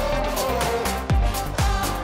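Background electronic dance music with a kick-drum beat about twice a second and a held melody. The beat drops out for about a second, then returns.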